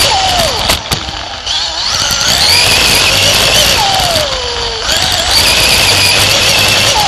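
Winged sprint car's engine at full race revs, heard from on board the car. The pitch drops sharply about half a second in and again around four seconds in as the driver lifts for the turns, and climbs back as he gets back on the throttle down the straights.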